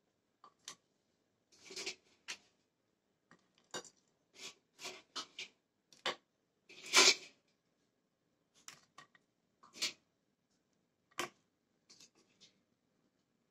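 Plastic tongs clicking and tapping against a ceramic plate and a metal colander as battered fried fish fillets are set out on the plate: a string of short, irregular clicks and light clatters, the loudest about seven seconds in.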